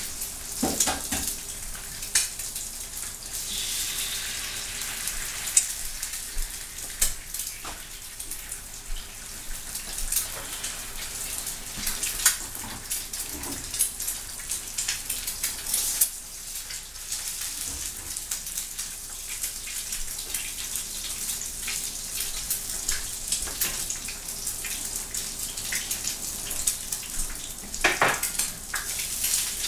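Food sizzling in a frying pan, with a spatula clicking and scraping against the pan now and then, most sharply near the end.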